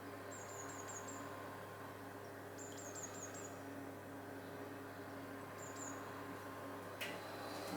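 A small songbird giving quick runs of about four very high, thin chirps, three times, over a steady low hum. A single click comes near the end.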